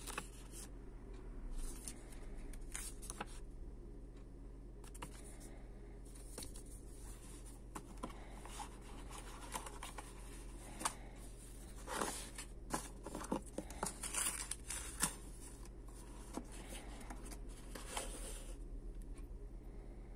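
Paper and cardboard being handled: the pages of a paper instruction booklet are leafed through, then a white cardboard box and its cardboard inner tray are opened, with scattered rustles, scrapes and light knocks. The handling is busiest in the middle.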